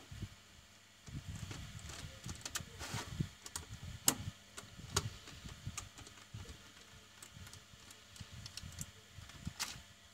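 Irregular clicks and light knocks of a white plastic WiFi modem casing being handled and turned over by hands during disassembly.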